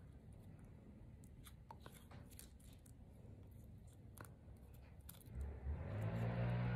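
Faint small clicks and crinkles of paper and copper tape being handled and pressed. About five seconds in, background music with sustained low notes fades in and becomes the loudest sound.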